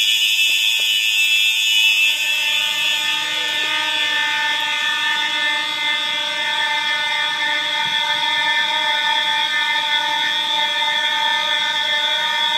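Fire alarm horn sounding a loud, steady, unbroken tone rich in overtones, strongest high up: the building's alarm is in test.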